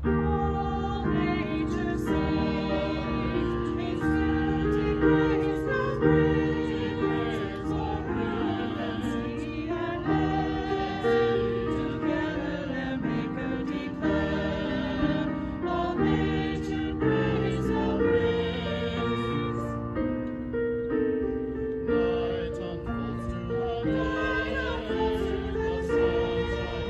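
A small mixed choir of men's and women's voices singing, accompanied by an electric keyboard.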